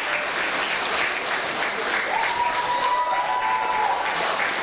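Audience applauding steadily, dense clapping with no break. A high steady tone sounds over the clapping from about two seconds in for nearly two seconds.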